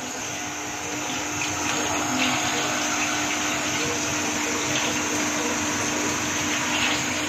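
Onion-tomato masala sizzling and bubbling in an open aluminium pressure cooker as it cooks down with a little water. It makes a steady hiss that grows a little louder in the first second or so, with a faint low hum underneath.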